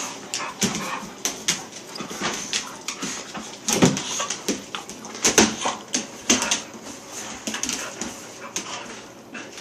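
Dogs play-fighting, snarling and giving short yelps and whines in quick, irregular bursts.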